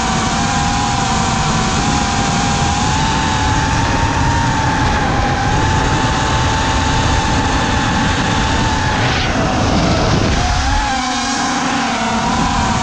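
FPV quadcopter's electric motors and propellers whining steadily, heard from the onboard camera with wind rushing over the microphone. About nine seconds in a sound glides sharply down in pitch, and the low rush eases briefly soon after.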